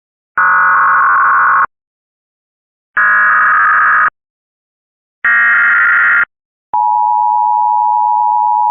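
Emergency Alert System SAME header: three bursts of digital data tones, each about a second long with short silent gaps, followed a little after six and a half seconds in by the EAS two-tone attention signal, held steady.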